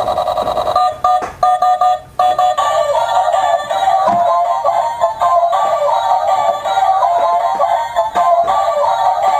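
Tinny electronic tune with synthesized singing from a remote-control stunt toy car's built-in sound chip, playing once the car is switched on. It breaks off briefly about two seconds in, then carries on.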